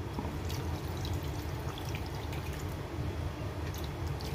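Salted water poured from a bowl into a clay tagine of meat, onions and tomatoes, trickling steadily onto the food.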